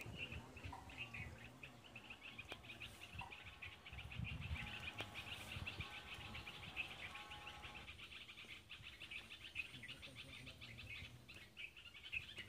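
Faint birds chirping, a continuous quick run of many chirps a second, over a low rumble.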